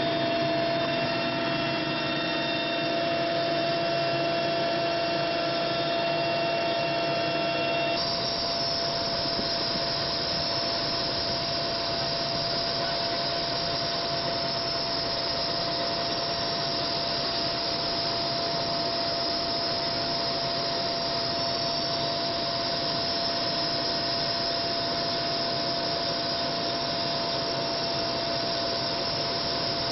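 Helicopter cabin noise in flight: a steady engine and rotor drone with a constant whine. About eight seconds in, several of the tones drop out and the noise turns more even.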